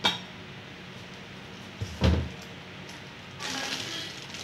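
A cardboard parcel box handled on a hard floor: a sharp tap at the start and a dull thump about two seconds in. Near the end a plastic courier mailer bag starts crinkling as it is picked up.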